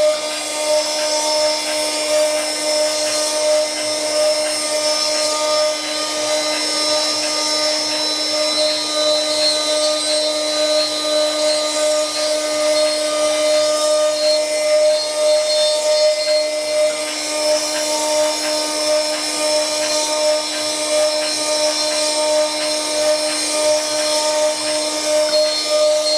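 Wood CNC turning-and-engraving machine running steadily: a constant motor whine over the noise of the tool cutting into wood.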